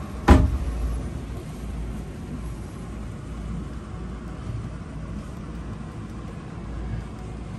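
A steady low rumble of cabin background noise, with one sharp knock about a third of a second in.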